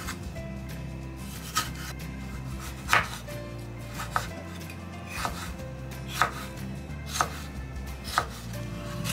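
Kitchen knife cutting limes and a tomato on a wooden cutting board: seven sharp knocks of the blade meeting the board, about one a second.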